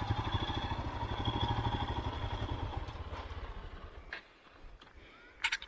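Royal Enfield Himalayan's single-cylinder engine idling with an even, rapid pulse that fades away about four seconds in, followed by a few faint clicks near the end.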